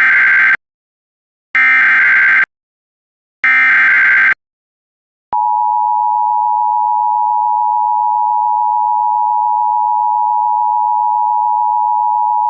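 Emergency Alert System alert opening: three roughly one-second bursts of SAME header data tones, the first already under way, with short gaps between them. About five seconds in, the EAS two-tone attention signal starts, a steady loud dual tone that announces an emergency message.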